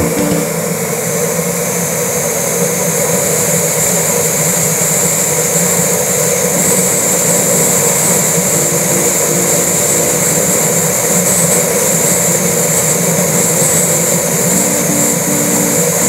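Steady rushing road and wind noise of a car driving at speed on an asphalt highway.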